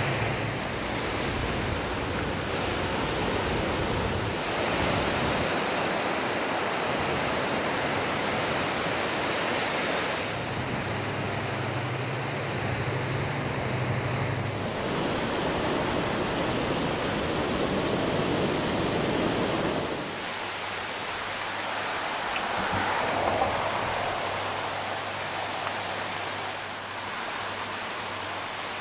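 Steady rushing noise of wind and surf over open sea, with a low hum coming and going; after a cut about 20 seconds in, the sound turns to a quieter rush of river water.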